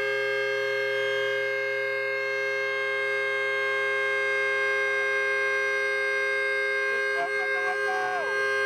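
Train horn held in one long continuous blast: a steady chord of several notes that does not waver.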